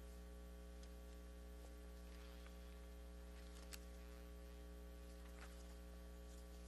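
Near silence with a steady low electrical mains hum, and a few faint clicks, the sharpest about halfway through.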